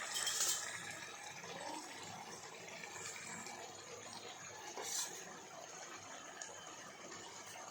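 Prawns in onion-tomato masala frying in a pan, a steady soft sizzle, with a couple of light knocks about half a second in and again about five seconds in.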